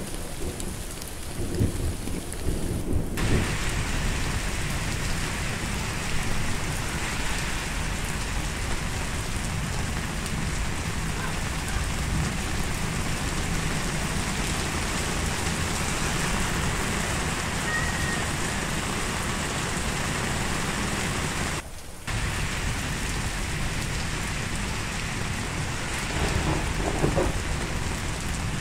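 Heavy rain pouring onto pavement as a dense, steady hiss. A low thunder rumble sits under it in the first few seconds. The sound changes abruptly about three seconds in and dips briefly near the end, where one rain recording gives way to another.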